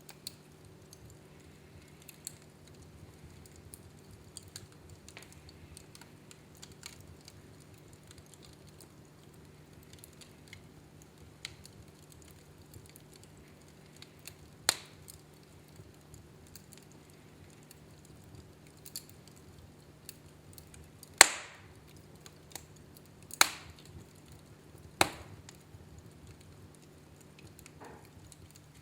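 Wood fire burning in a fireplace, crackling quietly with scattered small snaps and four loud pops: one about halfway through and three close together in the last third, the loudest of them about three-quarters of the way in.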